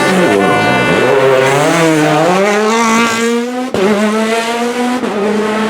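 Rally car engine revving hard on a stage. The pitch drops low just after the start, then climbs and falls again as the driver works the throttle and gears. There is a sharp crack about three and a half seconds in.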